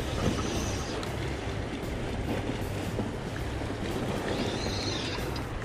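Steady sea noise of waves and wind, with a constant low rumble underneath and a few faint clicks.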